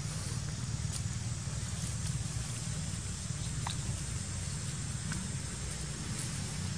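Steady low outdoor background rumble with an even hiss, broken by a few faint ticks and one brief faint squeak a little past halfway.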